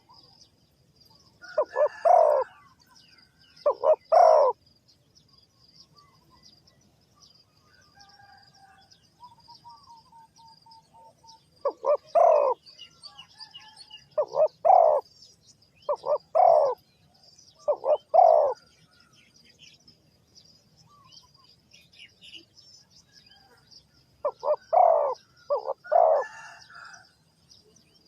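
Spotted dove cooing: short phrases of two or three low coos, repeated every couple of seconds, with a gap of several seconds in the middle. A faint steady high tone runs underneath.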